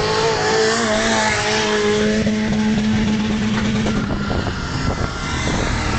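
Several autocross race cars' engines running at high revs on a dirt track, their notes rising and falling as the cars pass and corner.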